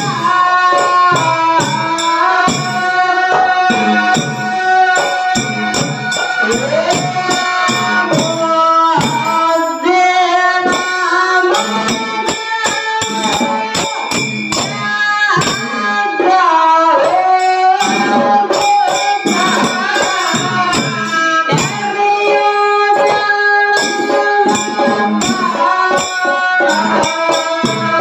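Kannada folk song (dollina pada) sung into a microphone. Small metal hand cymbals keep a fast, steady jingling rhythm, and a two-headed hand drum plays along.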